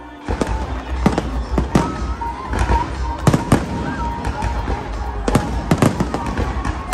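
Aerial fireworks shells bursting in a rapid, uneven series of sharp bangs over a low rumble, starting a moment in.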